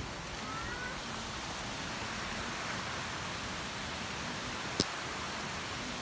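Steady rush of water sheeting down a broad sloping rock face. A single sharp click comes near the end.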